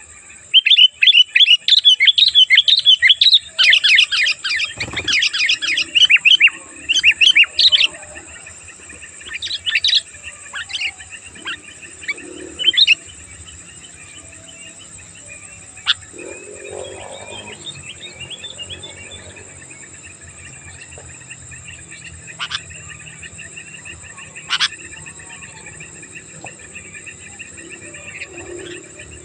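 Sooty-headed bulbuls (kutilang) calling in a busy run of rapid chattering chirps for about the first eight seconds, then only scattered single calls. A steady high-pitched tone runs underneath.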